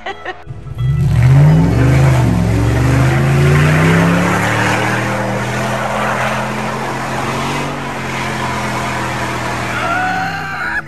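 A 4x4's engine revving hard under load as it climbs a muddy, wet creek-bed trail, with its tyres churning through mud and water. The revs climb about two seconds in, hold high with small rises and dips, and drop away near the end.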